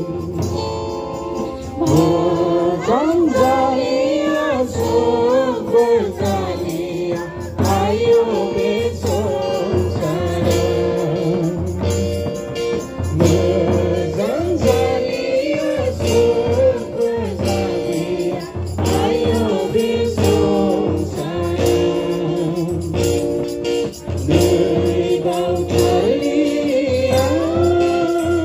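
A group of women and men singing a hymn together, accompanied by a harmonium's held reedy chords and steady strokes on a double-headed hand drum.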